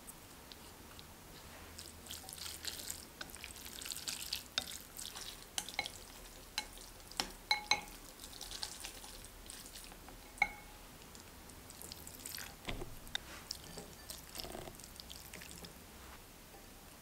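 Chopsticks mixing cooked Neoguri ramen noodles with an oil-and-soy sauce in a glass bowl: irregular wet swishing in bursts, with clicks and a few short clinks of the chopsticks against the glass.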